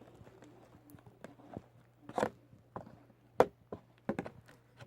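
Scattered short clicks and knocks of objects being handled, a few louder ones, over a faint steady low hum.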